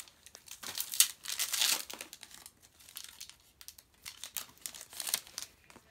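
Foil Pokémon booster pack wrapper crinkling and tearing as it is opened, in a series of irregular rustling bursts, the loudest about a second in.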